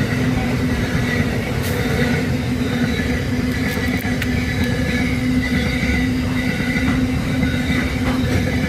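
SSR train passing close by: a loud, steady rumble with a low hum held throughout, and faint high squeals coming and going over it.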